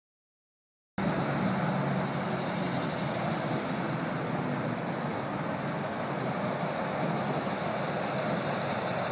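Mount Washington Cog Railway steam train coming down the mountain: a steady rumble that begins abruptly about a second in.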